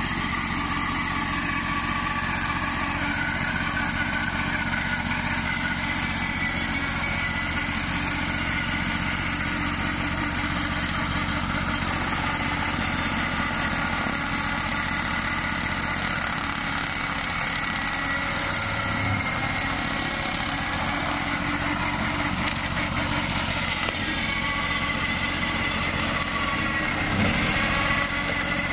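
Engine of a small home-built ride-on tractor running steadily while its front-mounted cutter mows through brush, with a brief surge near the end.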